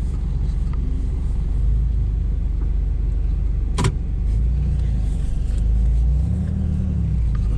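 Car engine running steadily with a low rumble; a sharp click a little under four seconds in, and the engine note rises and falls briefly near the end.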